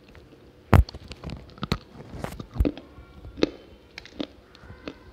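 Dry lumps of multani mitti (fuller's earth clay) being bitten and chewed: a series of sharp, crumbly crunches and snaps. The loudest is a hard bite about a second in.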